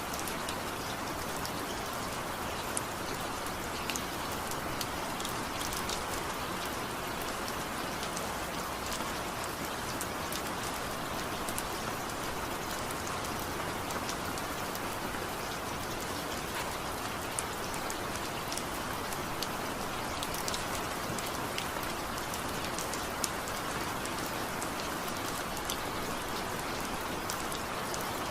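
Steady rainfall, a constant hiss with drops pattering and clicking on a surface, with no thunder or music.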